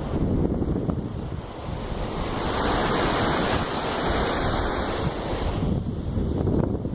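Surf washing in under wind buffeting the microphone; a wave's hiss swells from about two seconds in and dies away about a second before the end.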